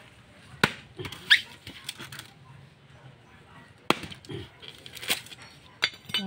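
A bolo knife chopping into coconut husks and shells: a handful of sharp, separate strikes a second or more apart as the nuts are split open for copra, with a short high squeak about a second in.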